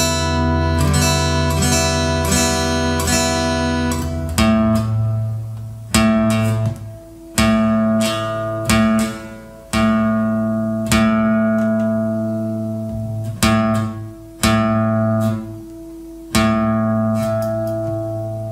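Acoustic guitar music: quick strummed chords for the first few seconds, then single chords struck about once a second or so and left to ring out.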